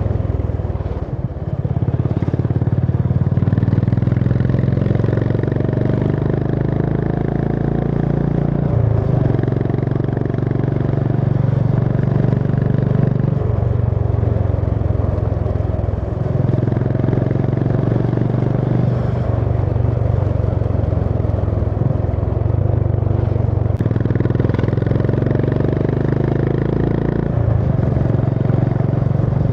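Honda CB350 H'ness's air-cooled single-cylinder engine running while riding, its note stepping down and back up several times through the stretch.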